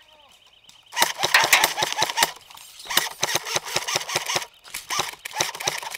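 Airsoft electric gun firing full-auto in three rapid bursts, about a second or more each, the motor-driven rattle of a dozen-plus shots a second. In the first second, before the bursts, only a faint electronic alarm beeping from the simulated bomb is heard.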